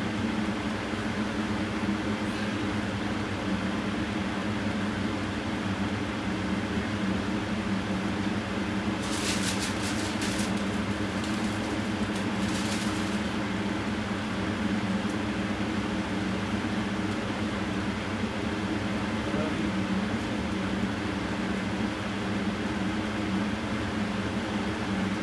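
Steady mechanical hum from a running motor or fan, with a short patch of light clicking or rustling about nine to thirteen seconds in.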